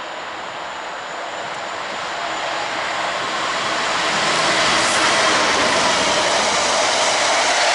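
Freightliner freight locomotive hauling a container train through a station at speed, a rushing, engine-laden rumble that grows steadily louder as it approaches and stays loud as the locomotive and container wagons pass close by.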